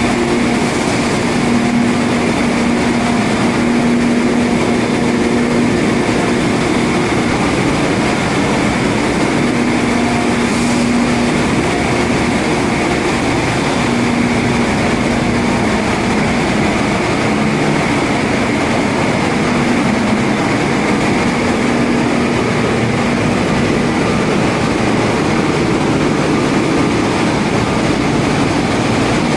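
Constant loud machinery din in the engine room of a dual-fuel diesel-electric LNG carrier, with a low hum that swells and fades.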